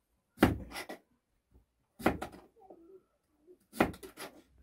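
Repeated sharp knocks, coming in three bursts of two or three hits each, one burst roughly every one and a half to two seconds.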